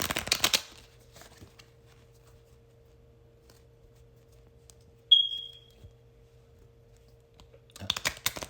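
A deck of oracle cards being shuffled by hand, a short rustle at the start and again near the end. About five seconds in, a single short high-pitched electronic beep rings out and fades quickly.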